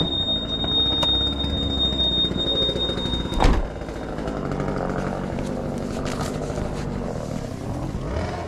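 An engine running steadily, with a thin high steady tone over the first three seconds and a single sharp knock about three and a half seconds in.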